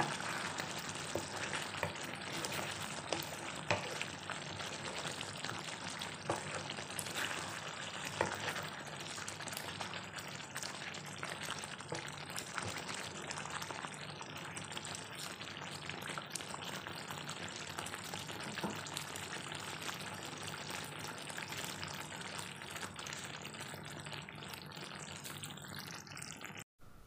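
Sambal sauce bubbling and sizzling in a non-stick wok as a wooden spatula stirs through it: a steady crackle with a few sharper knocks of the spatula. It cuts off just before the end.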